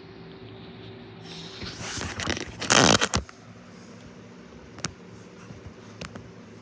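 Handling noise from a phone being moved: a loud rustling scrape of the microphone rubbing against a shirt, starting about two seconds in and lasting about a second and a half, then two small clicks, over a steady low hum.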